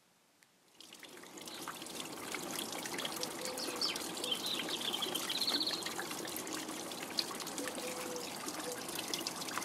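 Water trickling steadily, fading in about a second in, with a few high chirps and a short trill around the middle.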